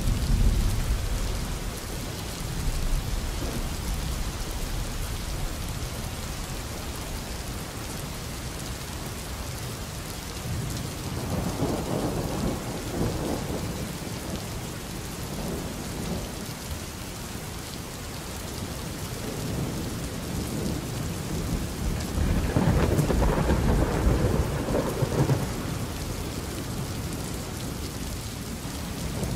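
Steady rain with rolling thunder: a long rumble swells about eleven seconds in, and a louder one about twenty-two seconds in.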